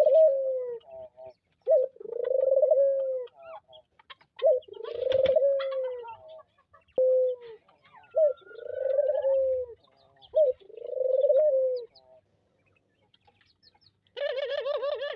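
Ringneck dove cooing over and over: a short note, then a long drawn-out coo, repeated every two to three seconds. It stops briefly near the end, then a harsher, wavering call begins.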